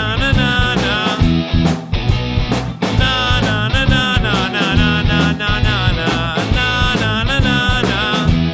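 A live rock band playing: drum kit, electric bass guitar and guitar, with a man singing over them.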